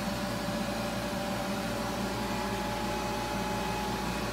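Rotary screw air compressor running steadily: a constant machine drone with a few unchanging hum tones over an even hiss.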